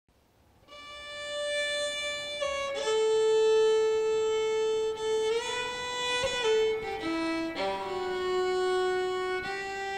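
Solo violin playing a slow melody of long held notes, fading in about a second in.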